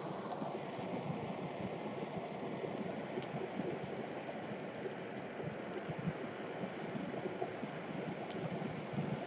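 Gas torch flame running with a steady rushing noise, with faint crackles from the burning plastic cup and yogurt.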